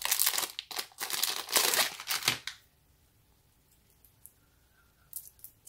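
Thin clear plastic bag crinkling as it is handled and opened, stopping after about two and a half seconds; a few faint ticks follow near the end.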